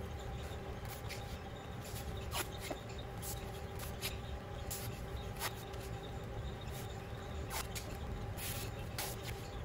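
Blue painter's tape being pulled off the roll and pressed down over a cast-iron engine block: short crackles, squeaks and tearing sounds scattered irregularly, over a steady background hum.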